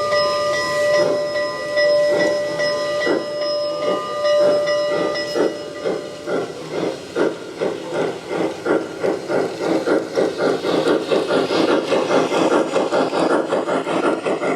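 G-scale model steam locomotive's chuffing, slow beats about a second in that steadily quicken to a fast run of several a second near the end. A steady whistle-like tone sounds over the first five seconds or so.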